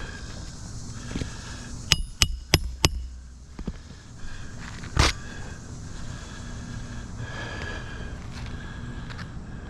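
Four quick, sharp taps about two seconds in, then a single louder knock about five seconds in, over steady outdoor background noise.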